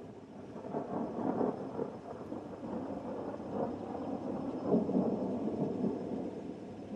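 Thunder rolling in a long, low rumble that swells twice and fades between.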